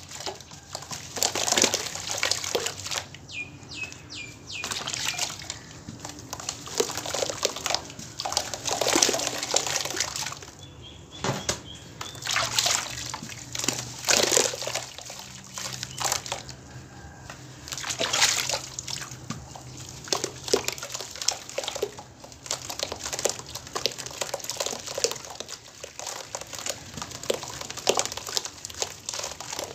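Wet chunks of baking soda and cement being squeezed and crumbled by hand in a tub of water, with irregular splashes and sloshing every second or two as the pieces break apart and drop in.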